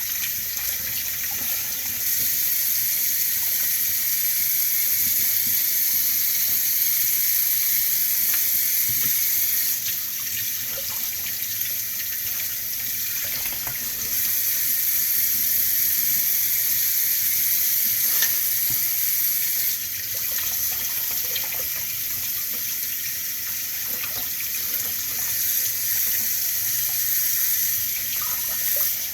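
Kitchen tap running into a sink in a steady hiss that grows and eases a few times, with a few light knocks of handling.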